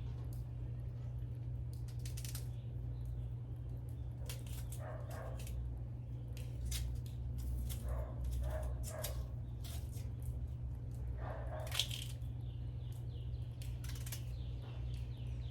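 Knife working through cassava: scattered clicks and taps over a steady low hum, with a few short pitched calls in the background.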